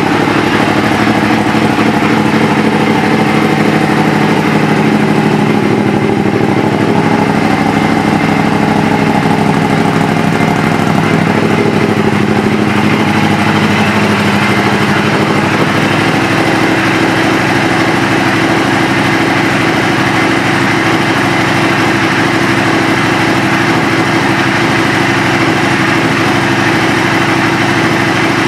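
2013 Aprilia Shiver 750's V-twin engine idling steadily through an aftermarket exhaust.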